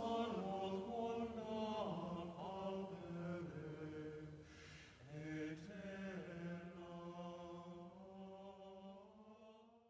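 Slow sung chant of long held notes gliding from one pitch to the next, with a breath between phrases about halfway through. It fades out near the end.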